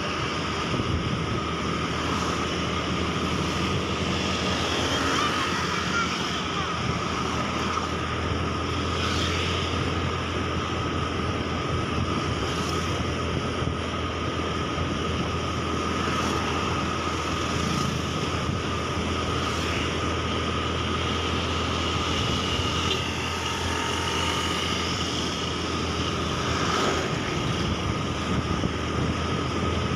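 Wind rushing over the microphone on a moving motorbike, with the bike's engine and tyres running at a steady cruise.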